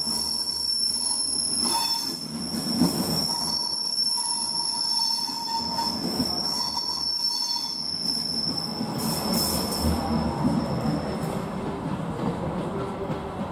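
Railjet passenger coaches rolling slowly round a curved station track, their wheels giving a steady high-pitched squeal over the rumble of the train. The squeal changes about two-thirds of the way in and fades out near the end, leaving the low rumble of a train.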